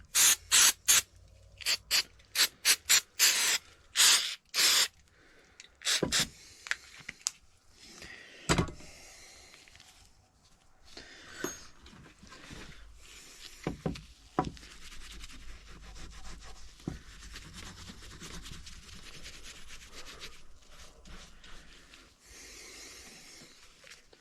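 Small steel wrench parts being scrubbed clean with parts cleaner: a quick run of about a dozen short, loud rubbing strokes in the first few seconds, a few more single strokes, then lighter steady rubbing.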